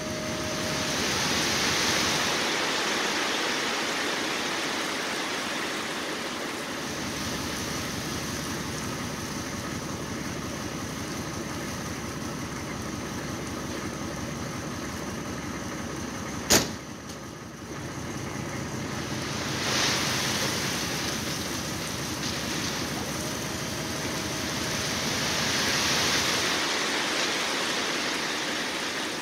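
Dump truck running with its bed tipped up while gravel slides out the back, the rush of sliding stone swelling near the start and again near the end. A single sharp click about halfway through.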